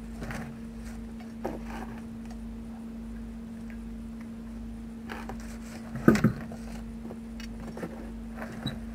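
Steel tyre lever knocking and clanking against the wheel of a truck's dual rear wheel during tyre work, a few scattered metal knocks with one loud clank about six seconds in. A steady low hum runs underneath.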